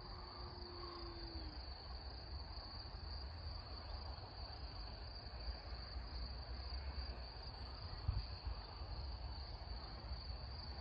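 Steady high-pitched insect chirring from the grass, with a low rumble underneath.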